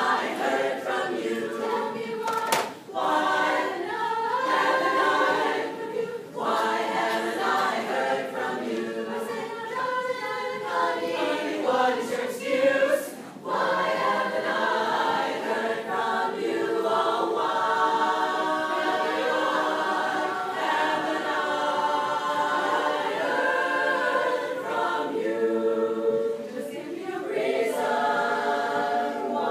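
Women's barbershop chorus singing a cappella in close four-part harmony.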